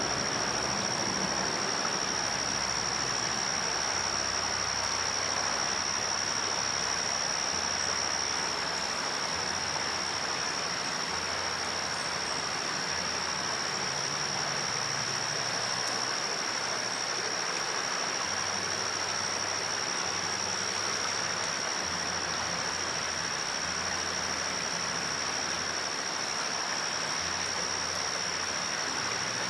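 River water rushing steadily over shallow rocks and riffles, with a steady high-pitched whine running throughout.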